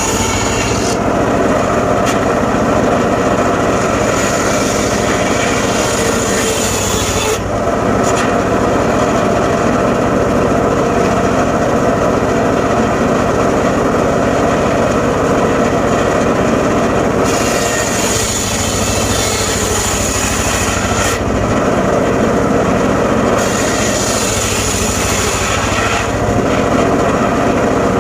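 Engine-driven circular saw of a mobile sawmill running steadily while ripping a teak log. The higher hiss of the cut drops away and comes back several times as the blade load changes.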